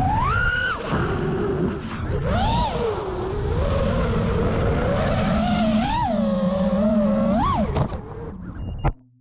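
FPV racing quadcopter's brushless motors and propellers whining, the pitch swooping up and down with the throttle. Near the end the motor sound falls away, a short sharp knock follows, and the sound cuts off.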